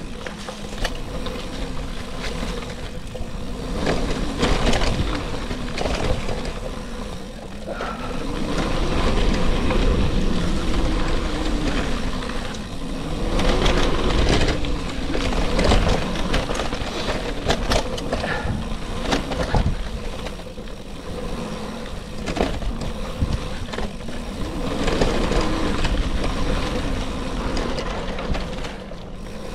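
Bicycle ridden over a gravel road: tyres crunching and the bike rattling over stones in many small knocks, with wind rumbling on the microphone. The loudness swells and falls with the riding.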